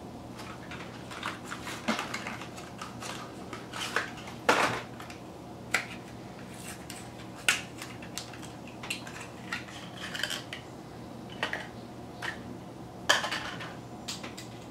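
Metal hand tools and parts being picked up and handled, giving scattered clinks and clatters at irregular intervals, with sharper knocks about four and a half seconds in and near the end.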